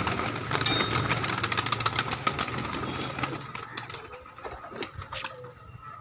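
A flock of domestic pigeons flapping their wings as they pour out of a loft: a dense, rapid clatter of wingbeats, loudest over the first three seconds and then thinning to a few scattered flaps as the birds settle.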